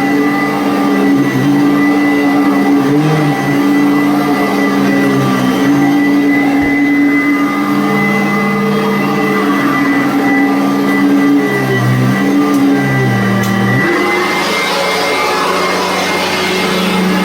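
Commercial vacuum cleaner running steadily, with a high motor whine and a lower hum that shifts in pitch as it works. The sound changes about fourteen seconds in.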